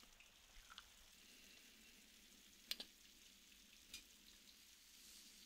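Near silence: a faint steady hiss with three soft clicks, one about a second in, one near the middle and one about a second and a half before the end.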